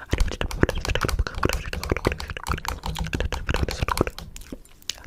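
Rapid, irregular clicking and tapping, several clicks a second, easing off briefly near the end.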